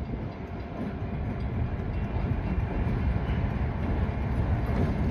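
Ontario Southland Railway diesel locomotives running with a steady low rumble that grows slowly louder.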